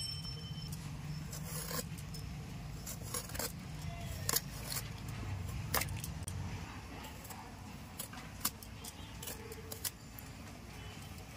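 Serrated vegetable peeler scraping the skin off eggplants, giving irregular short, sharp scrapes and clicks as strips of peel come away.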